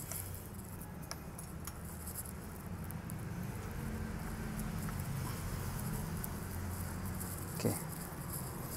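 Faint light clicks of a small bolt and washer being handled and fitted by hand into a motorcycle's radiator-guard mount, over a steady low hum, with one brief louder sound near the end.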